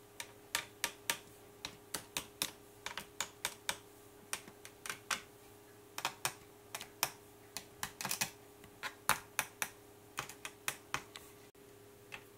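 Small precision screwdriver clicking against the screws of a laptop heatsink as they are turned and seated: sharp, irregular clicks, several a second, with a short pause about four seconds in, over a faint steady hum.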